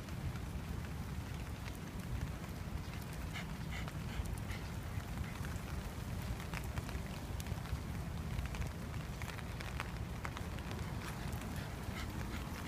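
Light rain pattering, heard as many small scattered ticks over a steady low rumble, while walking on wet pavement.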